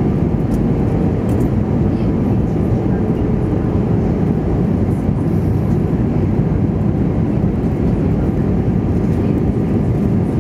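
Steady cabin noise inside an Airbus A320 on approach: a low, even rush of jet engines and airflow heard through the fuselage, with a faint steady hum.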